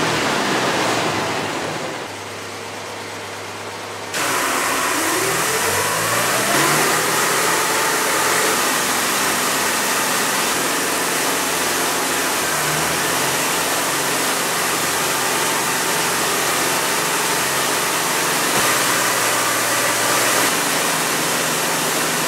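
Arresting-system engine running and revving. About four seconds in it gives way suddenly to louder steady engine noise on the runway: a strong hiss with a whine, rising in pitch shortly after the change.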